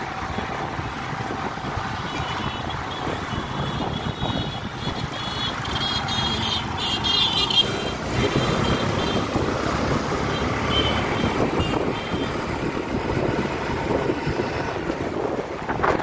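Road noise from travelling along a road in traffic: steady engine and tyre rumble with wind hiss. A motorcycle rides close alongside about halfway through, and a high tone sounds for several seconds in the first half.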